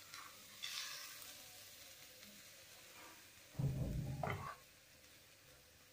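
Jaggery being scraped off a spoon onto grated coconut in a metal kadai: a soft hiss under a second in, then a dull low thump about three and a half seconds in.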